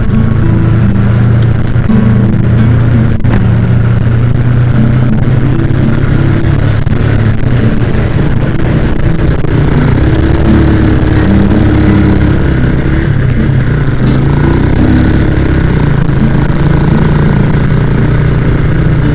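Motorcycle engine running steadily on the move, with wind and road noise over the microphone; the engine pitch rises and falls about halfway through.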